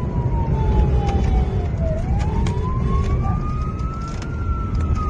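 Police siren on a slow wail: one long fall in pitch, then a rise about two seconds in, and a fall starting again near the end, over steady engine and road rumble inside the pursuing car.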